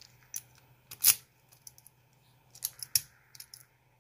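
Sharp metallic clicks of a key working in a reassembled puzzle lock. The loudest click comes about a second in, and a quick run of smaller clicks follows near the end.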